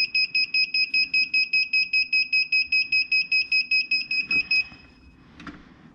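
Vevor heat press controller sounding its end-of-timer alarm: a rapid run of high, evenly pitched beeps, about six a second, which stops abruptly after about four and a half seconds. The alarm signals that the press countdown has finished.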